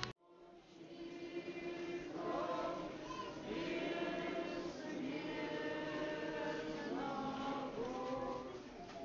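Russian Orthodox church choir singing a liturgical chant in long held chords. It starts about a second in, after a brief silence.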